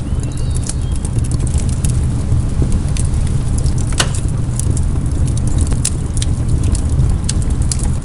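Wood campfire crackling, with irregular sharp pops over a steady low rumble; the loudest pop comes about halfway through.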